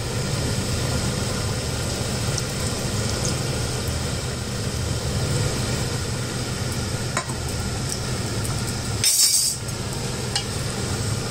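Spoon stirring a pot of simmering chicken curry as a flour slurry is mixed in to thicken the gravy, with a few light clinks of the spoon against the pot over a steady hum. A short, sharper burst of noise comes about nine seconds in.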